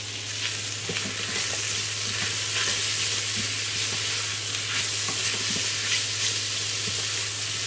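Sliced calabresa sausage, garlic and chopped onion sizzling in olive oil in an electric pressure cooker's pot, stirred with a silicone spoon with light scraping. A steady low hum runs underneath.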